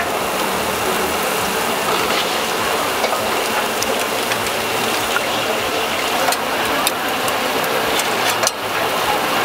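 Seafood sizzling on a grill: a steady hiss with scattered crackles and pops.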